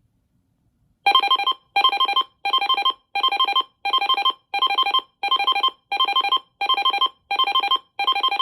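Uniden BC370CRS scanner radio's alert alarm beeping about a second in: eleven loud, evenly spaced bursts of a rapid electronic trill, roughly three every two seconds. The alarm signals a received tornado watch alert.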